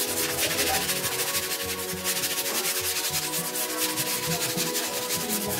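Wood being sanded with abrasive paper: a fast, even, rasping rhythm of rubbing strokes, over background music.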